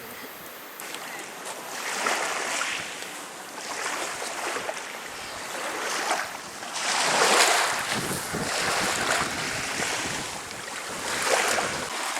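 Choppy sea rushing and splashing against a small boat under way, swelling in surges every couple of seconds, with wind buffeting the microphone.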